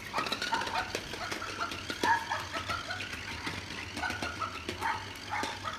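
Battery-powered bouncing plush animal toy: its small motor hums steadily while the toy rattles and knocks as it bounces across the floor. Short, high-pitched electronic chirps from its voice box come in at intervals.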